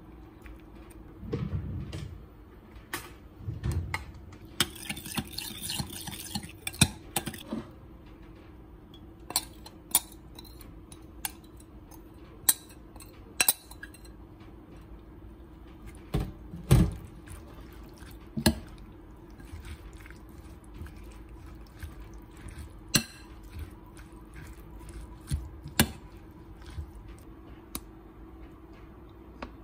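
A metal spoon clinking and scraping against a glass bowl while a lemon-oil dressing is mixed and tossed through shredded carrots, with sharp clinks scattered throughout and a few seconds of quick scraping about five seconds in. A steady low hum runs underneath.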